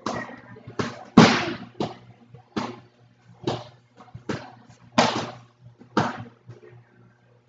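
A series of heavy thuds, roughly one a second, each echoing in a large gym hall; the loudest comes about a second in.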